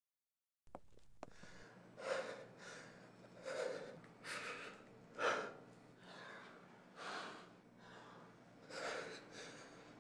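A man sobbing into his hands: quiet, gasping breaths about once a second, over a low steady room hum.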